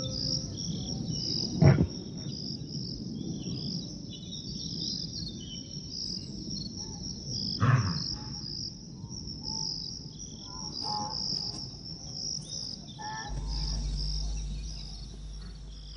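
A dense, high-pitched chorus of insects chirping steadily. Two short, louder sounds stand out, one about two seconds in and one about eight seconds in, and a low hum joins near the end.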